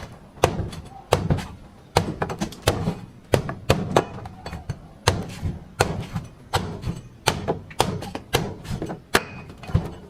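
Machete chopping into a coconut: a steady run of sharp, thunking strikes, about one and a half a second, some coming in quick pairs.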